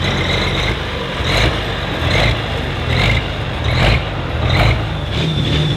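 Super Farm pulling tractor's turbocharged diesel engine running loud and continuous, with a faint steady high whine over it. Louder swells come roughly once a second.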